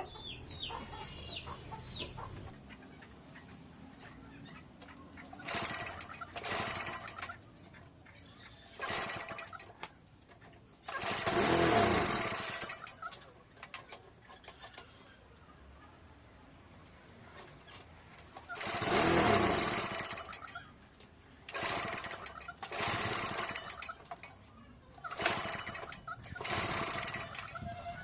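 Snapper walk-behind lawn mower engine being pull-started over and over. Each short burst of cranking is followed by a pause, and twice the engine catches for a second or two before dying. The engine is hard-starting and misfiring, and won't keep running.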